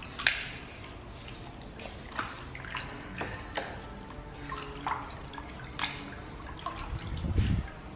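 A coarse natural sharpening stone being scrubbed by hand with a scouring pad in a plastic basin of water: splashing and dripping water, a few short splashes a second, as the rock dust is washed off. A louder low knock sounds near the end.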